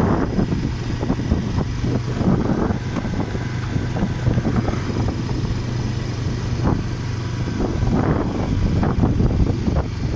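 Motorcycle engine running steadily while riding, a constant low hum under a rushing noise.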